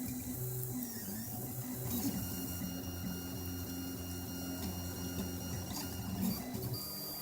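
Stepper motors of a Smartrap RepRap 3D printer whining while printing, their pitch shifting with each move, steadier through the middle.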